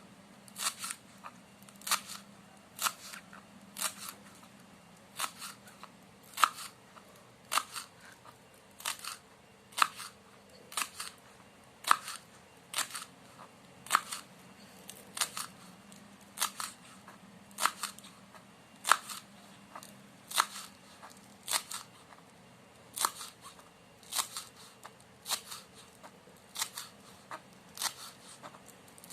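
Knife cutting spring onions on a cutting board: a steady run of sharp knocks, close to two a second.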